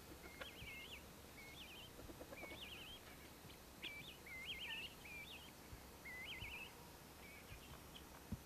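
A songbird singing faintly: short warbled phrases, about one a second, over a steady outdoor hiss.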